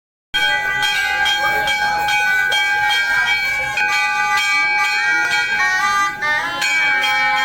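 Brass temple bells rung over and over, several ringing together and struck about three times a second.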